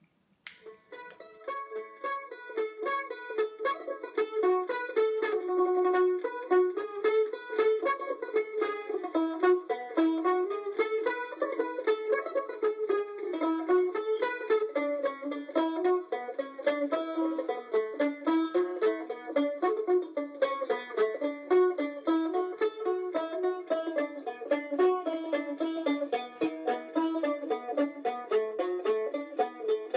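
Background music: a quick instrumental tune on plucked string instruments.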